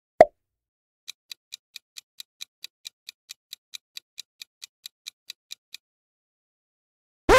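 A single sharp pop sound effect, then a clock-style ticking sound effect at about four to five ticks a second for nearly five seconds, the ticking of a quiz countdown timer.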